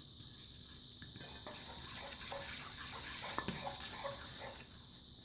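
Thick mix of glue and bicarbonate soda being stirred in a bowl: soft wet scraping with irregular light clicks of the utensil against the bowl, starting about a second in and easing off near the end.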